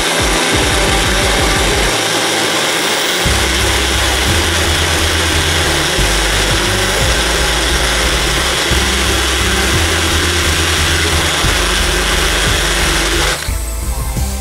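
Small Mix & Blend personal blender motor running at full speed, grinding a thick red chilli spice paste. It is a loud, steady whirr that cuts off abruptly near the end.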